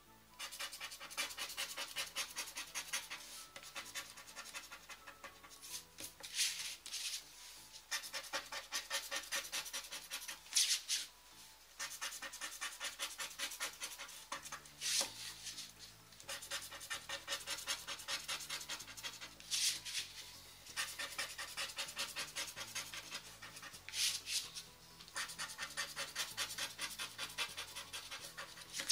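Scratch card being scratched: rapid back-and-forth scraping of the coating in bursts of a few seconds, with short pauses and a few single louder strokes between them.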